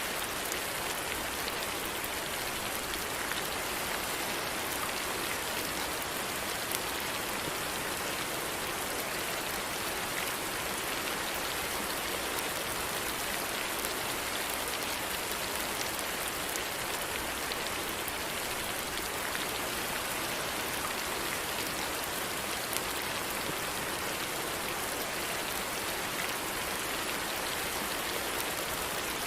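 Steady rain falling, an even hiss with scattered small drop strikes on a surface.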